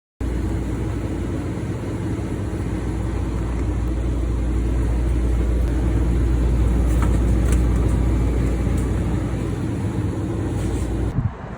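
Steady low rumble of a moving vehicle. It swells slightly midway and cuts off abruptly near the end.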